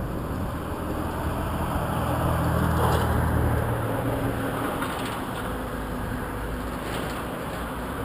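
A motor vehicle passing close by: a low engine hum that grows louder to about three seconds in and then fades, over a steady noisy background, with a few faint clicks.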